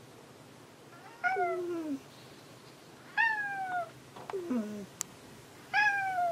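A cat meowing four times, each meow falling in pitch; the third is shorter and lower than the others. A single sharp click comes about five seconds in.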